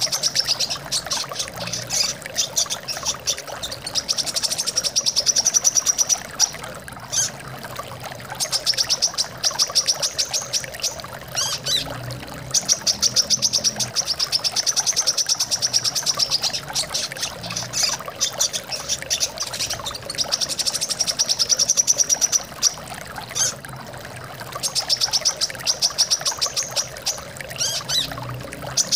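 Plain-throated sunbird (kolibri kelapa) singing rapid, high trilled phrases in bursts of a few seconds, one after another, over a steady sound of flowing water.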